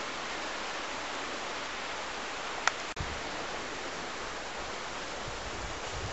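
Steady, even hiss of outdoor background noise, with one short click nearly three seconds in and low rumbling through the second half.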